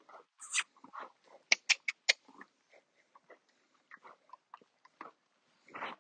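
A pet animal's short snuffles and mouth noises, with four sharp clicks in quick succession about a second and a half in.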